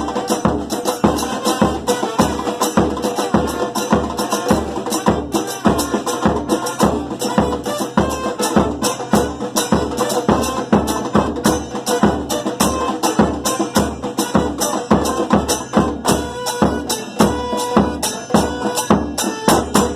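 Batucada percussion ensemble playing a cumbia groove: a low bass drum beats steadily about twice a second under busy hand percussion and sharp clicking strikes.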